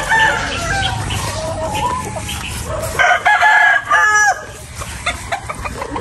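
Several gamefowl roosters crowing, one call over another, with the loudest crow coming about three seconds in and lasting over a second.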